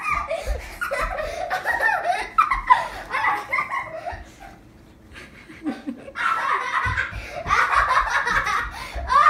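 A young child laughing in long runs of high-pitched giggles, with a pause of about a second and a half near the middle.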